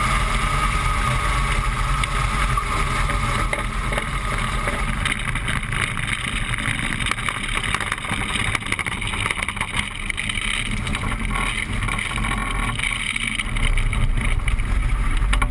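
Light aircraft engine running steadily, mixed with wind rushing over the microphone.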